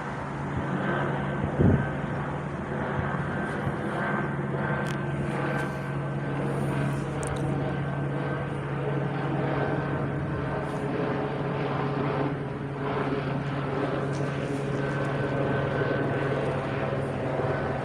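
Helicopter overhead, its engine and rotors making a steady drone with a low hum.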